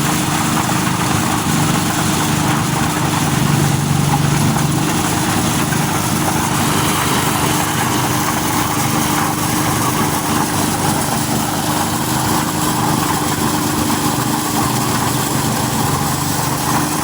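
Engine-driven corn sheller running steadily: a constant engine hum under a dense, even hiss from the working machine.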